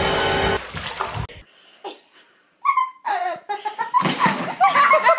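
A person laughing hard in a run of short, high, bending laughs, starting about two and a half seconds in. Before that, a snatch of steady music cuts off about half a second in.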